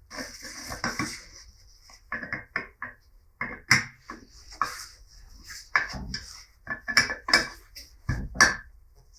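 Metal vise parts and tools being handled on a workbench: an irregular series of sharp clinks and knocks, with a brief scraping sound in the first second or so.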